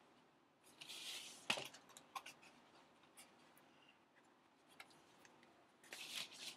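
Faint handling of DVD box sets: a short rustle and slide about a second in, followed by a sharp click, a few small taps, and another brief rustle near the end.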